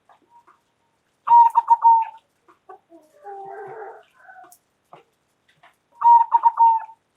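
Zebra dove (perkutut) cooing: two loud phrases of rapid repeated notes about four and a half seconds apart, with a quieter, lower call between them.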